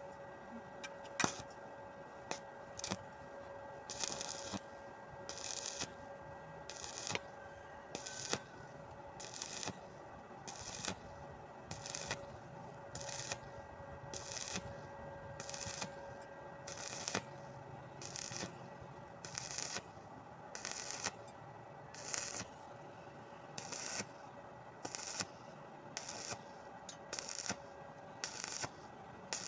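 Stick welding on steel angle iron: the electrode's arc sounds in short bursts about once a second, in a steady rhythm, as the arc is struck and broken again and again to stitch the corner joint.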